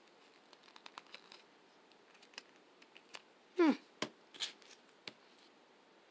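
Small plastic clicks and cloth rustles of action figures being handled and posed, with a short squeak about three and a half seconds in and a knock just after as a figure is set down on the table.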